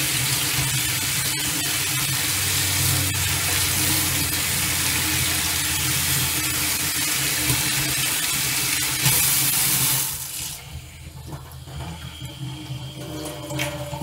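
Tap running hard onto a mesh tea-infuser ball of soaked seed, the water spraying through it and splashing into a stainless steel sink. About ten seconds in, the flow is cut back sharply to a thin stream.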